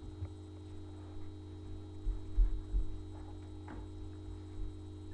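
Steady electrical hum, with a few low thuds and knocks about two to three seconds in and a faint click a little later.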